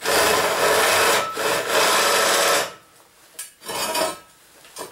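Power drill with a large 1-inch bit cutting into a metal box: a loud grinding rasp for about two and a half seconds with a brief break partway, then a few short spurts of drilling.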